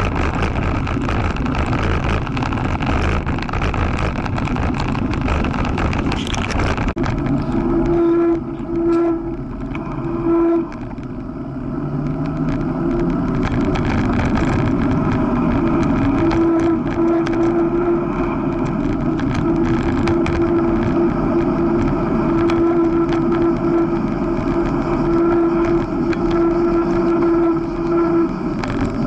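Onboard ride noise from a moving bike: rough tyre and wind rumble while on the dirt track, then, about seven seconds in on smooth asphalt, a steady buzzing hum that drops out briefly a few times.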